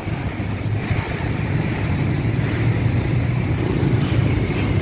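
Swollen, fast-flowing Ciliwung River floodwater rushing through the railway bridge openings: a steady, deep rushing noise.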